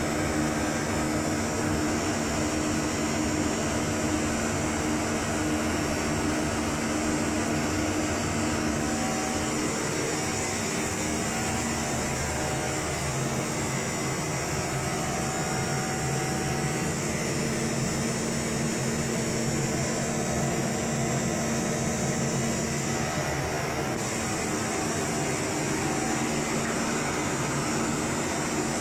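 Steady whir and hum of equipment cooling fans, with a few constant tones over an even rushing noise.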